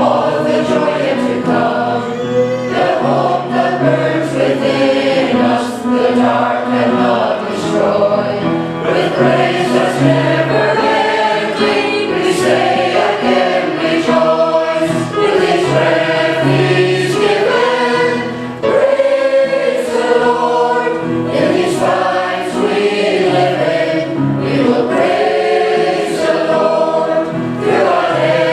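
A choir singing a hymn in parts over steady low accompanying notes.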